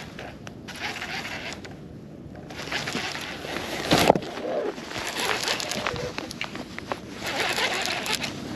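Close handling noise: jacket sleeves rubbing against the microphone while a baitcasting reel is worked by hand, with scattered clicks and one sharp knock about four seconds in.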